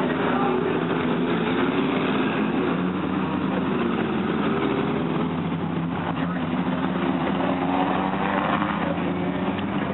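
Engines of a pack of compact dirt-track race cars running together at moderate speed, a steady mix of several engine tones that rise and fall slightly as the cars circle.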